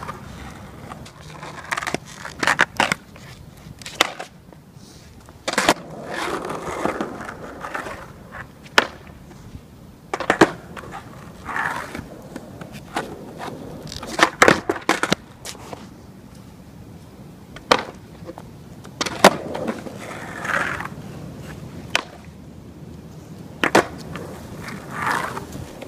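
Skateboard on an asphalt street, with repeated sharp pops and clacks as the tail snaps and the board and wheels hit the pavement during half-cab flip attempts. Short stretches of the urethane wheels rolling come in between.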